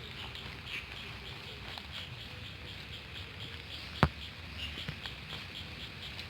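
Night insects chirping in a steady rhythm, about four short pulses a second, with a low rumble of handling or walking noise underneath. A single sharp click about four seconds in is the loudest sound.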